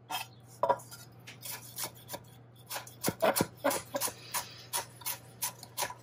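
Chef's knife chopping carrots on a wooden cutting board: a run of sharp knocks of the blade on the board, a couple at first, then about three a second from about a second and a half in.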